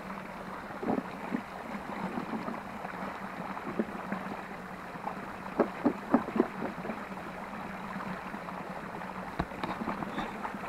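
Small forest stream running steadily over a fallen log. A few short knocks or rustles, the loudest about six seconds in.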